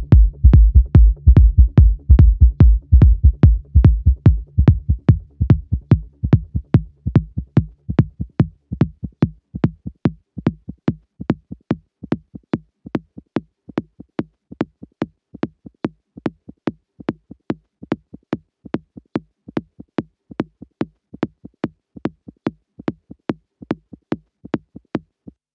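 Outro of a techno track: the deep kick and bass fade out over the first eight seconds, leaving a bare drum-machine click pattern of about two hits a second with a faint low tone under it. It stops abruptly just before the end.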